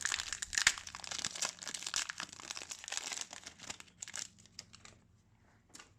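Hockey card pack's foil wrapper crinkling and tearing as it is opened by hand, a dense rustle that dies away after about four and a half seconds, with one small click near the end.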